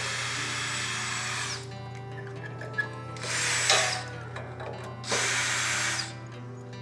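DeWalt 20V cordless drill running in three bursts: a long run of about a second and a half at the start, then two shorter runs about three and five seconds in. Background music plays underneath.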